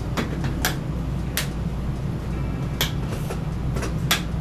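About half a dozen sharp clicks and taps as hands handle and press on the edge pieces of a TV panel's frame, over a steady low hum.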